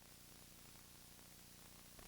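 Near silence: a faint steady hiss from the VHS recording.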